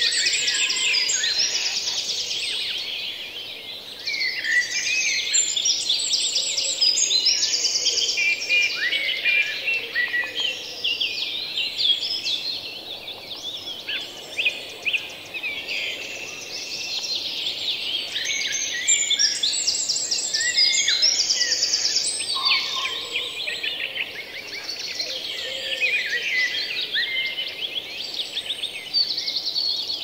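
Several songbirds singing together: dense, overlapping chirps and quick high trills.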